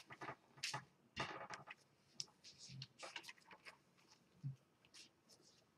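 Thin Bible pages being turned and smoothed by hand: a series of short, soft paper rustles with a couple of faint knocks against the desk.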